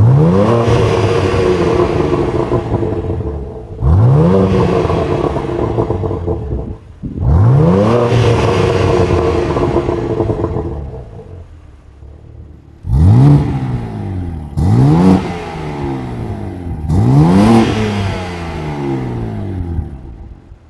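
BMW G80 M3's S58 twin-turbo straight-six revved while parked with the exhaust valves open. It gives three longer revs held for a couple of seconds each, then three quicker blips in the second half, its pitch rising sharply and falling back to idle each time.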